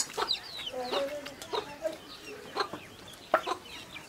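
Domestic chickens clucking: a run of short, separate calls, over sharp little clicks.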